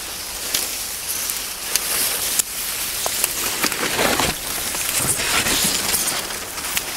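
Dry reeds and willow brush rustling and crackling, with many scattered sharp snaps and ticks, busiest around the middle.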